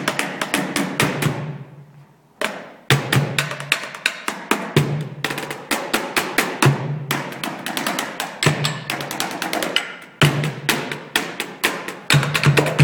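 Drumsticks beating a fast rhythm on chairs and a slung pail drum, with a deep drum note under the clatter of stick hits. The playing stops briefly about two seconds in and starts again sharply.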